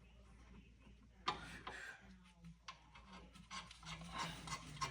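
Faint rubbing and clicking of metal brake parts being slid into place on the rear hub, with one sharp click about a second in.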